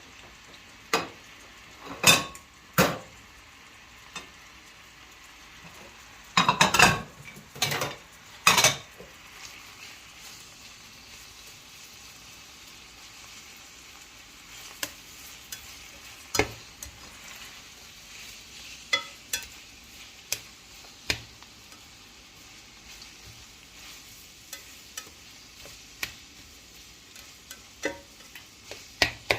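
Food sizzling in a pot while a metal spoon stirs and scrapes it, with several loud clatters against the pot in the first nine seconds and lighter taps after that.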